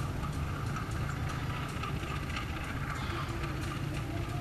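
CC 201 diesel-electric locomotive engine running at low power as the locomotive rolls slowly in, a steady low drone.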